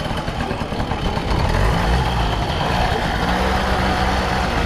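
A vehicle engine running steadily, its low hum growing more even about two seconds in.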